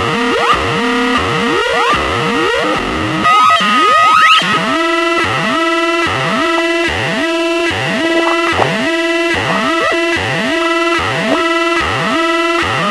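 Teisco 110-F analog synthesizer making electronic noise effects: quick rising pitch sweeps over held tones, then, from about four and a half seconds in, a rhythmic pulsing pattern of upward swoops repeating roughly every 0.6 seconds.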